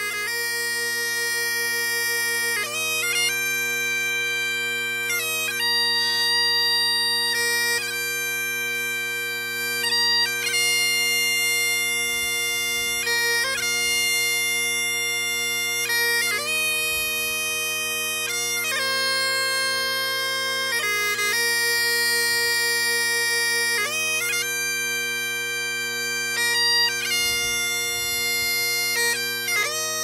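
Scottish Highland bagpipes playing a tune: the steady drones sound throughout while the chanter moves between long held notes, changing every one to three seconds.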